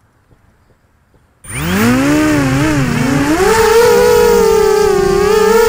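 The four brushless motors of a Dart 250 FPV racing quadcopter spin up suddenly about a second and a half in, a loud whine. The whine rises and wavers in pitch as the throttle comes up for takeoff, then holds at a steady high pitch while it flies.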